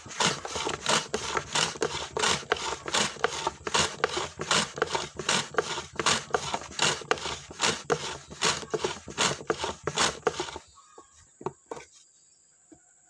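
Shallots being sliced on a hand-pushed wooden slicer: rhythmic scraping strokes, about three a second, stopping about eleven seconds in.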